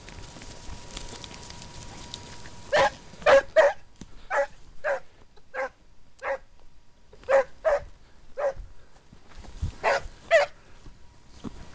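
Scent hound giving tongue while working a hare's trail: about a dozen short barks in irregular pairs and runs, starting about three seconds in.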